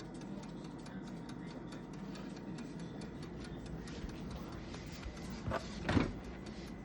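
Steady low hum with many faint ticks and clicks throughout, and two louder short knocks or rustles about five and a half and six seconds in.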